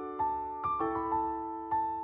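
Background music: soft piano playing a gentle melody over sustained chords.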